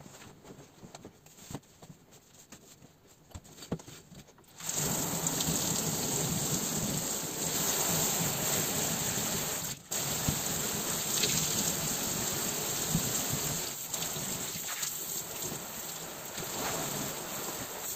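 Shower water turning on about four and a half seconds in, after a few faint knocks, then spraying steadily behind the shower curtain, broken once by a short dip near the middle.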